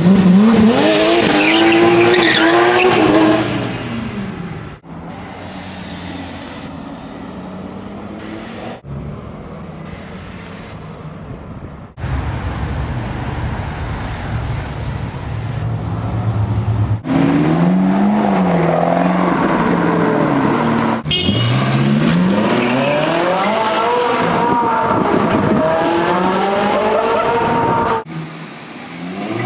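Supercar engines in a run of short clips cut together: a Porsche 911 GT3's flat-six revving hard and rising in pitch as it pulls away, then other cars' engines rising and falling as they rev and accelerate past, with a lower, steadier engine sound in the middle and abrupt cuts between clips.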